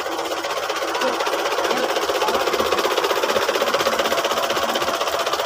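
Belarus farm tractor's diesel engine running close by with a fast, even clatter, growing a little louder about a second in.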